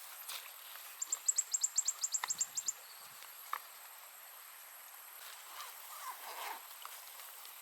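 A bird's fast trill of about fifteen short, high notes, each falling in pitch, lasting under two seconds, over a steady high insect buzz. A couple of sharp clicks and some soft rustling follow.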